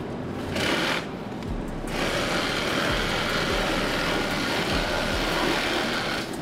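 Handheld cordless power tool running against a fiberglass deck panel, stripping off old foam, easing off briefly about a second in.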